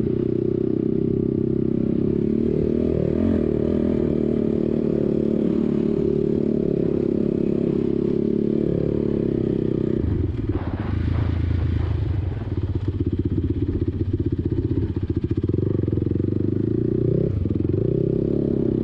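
ATV engine running steadily under throttle, then easing off and changing pitch about ten seconds in before running on again.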